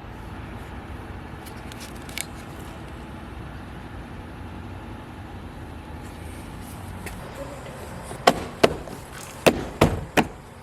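Sharp plastic clicks and knocks, five or six in quick succession starting about eight seconds in, as a BMW F10's door trim is pressed back into place, over a steady low background rumble.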